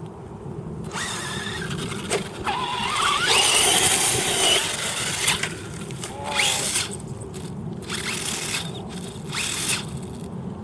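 Toy RC car's electric motor whining in several spurts, its pitch rising and falling as the car speeds up and slows down.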